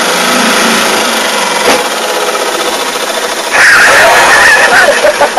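Small gas outboard motor running steadily. About three and a half seconds in, a louder, rougher noise comes in over it.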